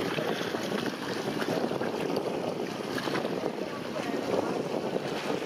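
Wind buffeting the microphone over choppy water lapping and splashing, a steady rough noise with no engine or voice standing out.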